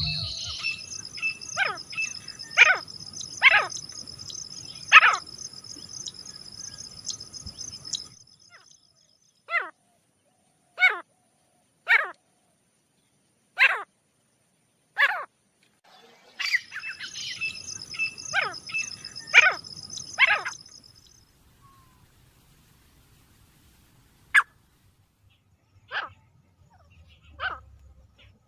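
Grey francolin calling: a series of loud, sharp notes about one to one and a half seconds apart. Behind them, a high steady buzzing drone runs through the first eight seconds and comes back for a few seconds in the middle.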